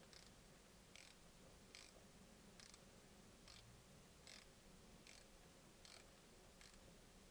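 Faint ticking, a short click about every 0.8 s: a small ratchet's pawl clicking on each back-swing as it turns a Heli-Coil installer, winding a stainless-steel thread insert into a tapped hole.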